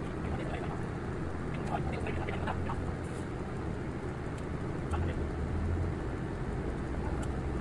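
City bus engine running with a low, steady rumble, heard from the driver's seat as the bus moves slowly. A few faint short high sounds come through over it.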